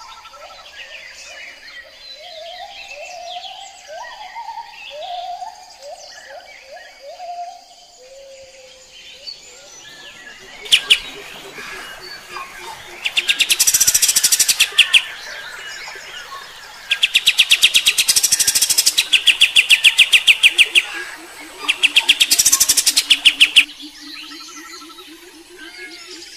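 Kapas tembak bulbul singing: a run of short, low, warbling phrases, then loud, very rapid rattling trills in several bursts a few seconds long, the 'shooting' song the bird is named for. Near the end a low series of notes climbs step by step.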